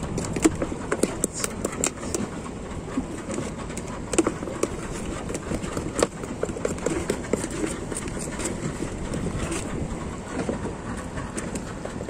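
Knife blade scraping algae off a sea turtle's shell: repeated short scrapes and clicks, densest in the first couple of seconds, over a steady background rumble.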